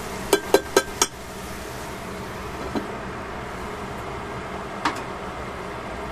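Metal tongs tapped four times in quick succession on the rim of a stainless steel pan, with a short metallic ring. Then a glass lid is set down on the pan with a dull knock, and a light clink follows, over a steady hiss of the vegetables cooking.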